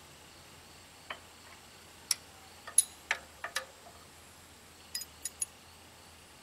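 Irregular sharp metallic clicks and clinks, about ten of them, from a wrench working the engine's mounting bolts as they are tightened down.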